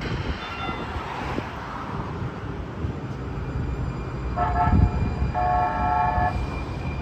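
Two horn blasts from a Valley Metro rail vehicle, several tones sounding together: a short blast about four and a half seconds in, then a longer one. Under them runs the steady low rumble of rail traffic at the stop.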